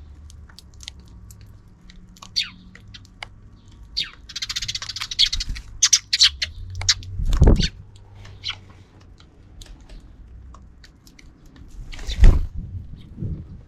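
Sparrows chirping in short, scattered calls, with a quick chattering burst about four seconds in. Two loud thumps at close range, about seven and twelve seconds in.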